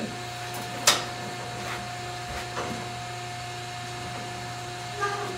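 Steady mechanical hum with a faint high whine over it, broken about a second in by one short sharp hiss and later by a couple of fainter ones.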